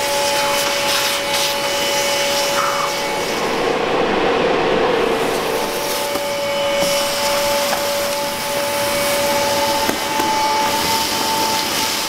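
Vacuum cleaner running steadily with a whining motor, its hose nozzle sucking up dirt and debris from a floor.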